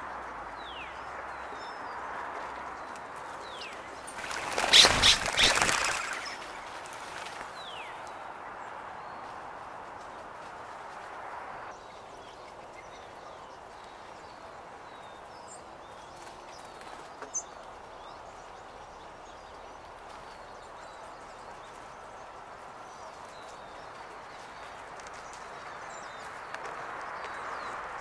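California quail flushing, a loud whirr of wingbeats lasting about a second and a half, roughly five seconds in. Faint songbird chirps over a steady background hiss.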